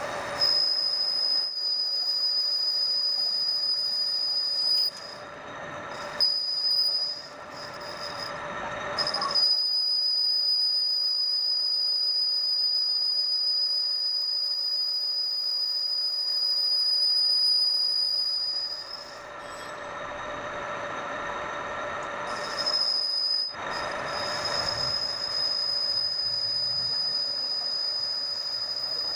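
A manual metal lathe cutting a steel workpiece, the cutting tool giving a steady high-pitched squeal over the lower whine of the running lathe. The squeal breaks off a few times, once for a few seconds, and comes back.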